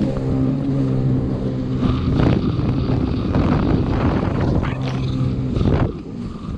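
Jet ski engine running at a steady pitch, with bursts of rushing noise over it; the engine tone stops near the end.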